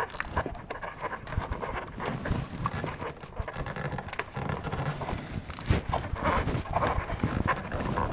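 Gloved hands handling car wiring and a rubber door cable boot: irregular rustling, rubbing and small crackles.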